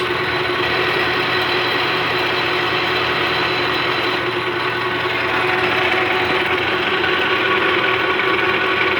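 Sheldon 15x42 gear head engine lathe running steadily, its gearbox and 3 hp motor giving a constant hum with a steady whine.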